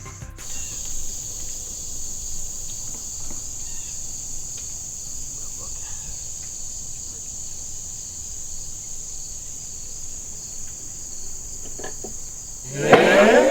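A steady, high-pitched drone of insects calling in chorus. Near the end, a loud voiced shout breaks in.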